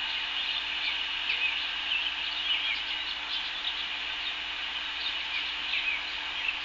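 Many birds chirping and calling in short, quick notes over a steady background hiss, with a faint steady low hum underneath.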